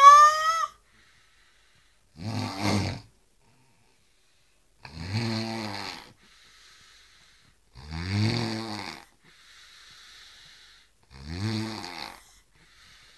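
Snoring in slow, even breaths: four snores about three seconds apart, each a low pitched in-breath lasting about a second, with a faint hiss of breath between them. Right at the start a brief, high, rising animal cry is heard, louder than the snores.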